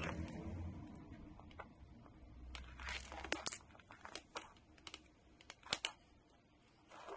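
Thin insulated wires of a power-supply lead handled and twisted by hand: faint crinkling rustles and a few sharp little clicks, most of them about halfway through, after a dull low rumble at the very start.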